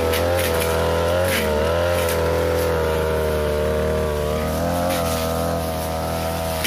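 42cc backpack brush cutter's two-stroke engine running at high speed, its pitch dipping slightly as the metal blade bites into thick grass and brush. A few brief swishes of the blade tearing through the vegetation come through over the engine.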